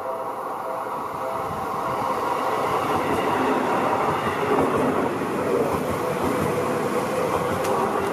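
Seibu 20000 series electric commuter train passing close by, wheels rumbling and clattering on the rails. It grows louder over the first few seconds and eases off near the end.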